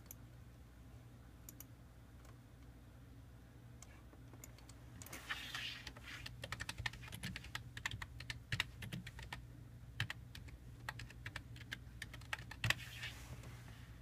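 Typing on a computer keyboard: a quick, irregular run of key clicks starting about five seconds in and stopping near the end, over a low steady hum.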